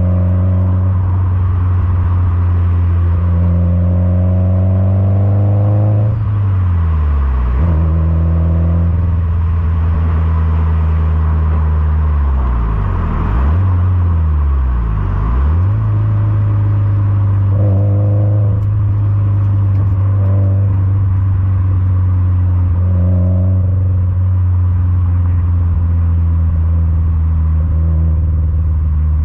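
Exhaust note of a Subaru WRX STI (VAB) turbocharged flat-four through a modified TRUST GReddy Power Extreme R muffler, heard right at the tailpipe while driving. It is a steady deep note whose pitch drops sharply and climbs back a few times as the car comes off the throttle and pulls again.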